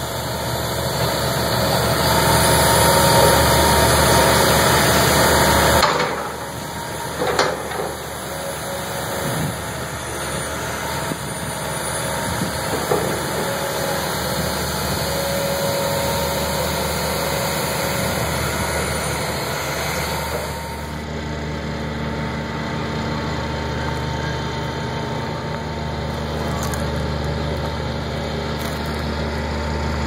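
Heavy construction machinery running: a John Deere excavator's diesel engine working, loudest for the first few seconds, with a couple of sharp knocks around seven seconds in. About two-thirds of the way through it gives way to a steadier engine drone.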